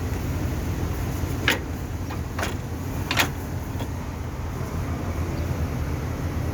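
A steady low rumble with several sharp knocks and clicks, typical of tools and parts being handled during car repair work. The loudest knocks come about a second and a half in and again about three seconds in.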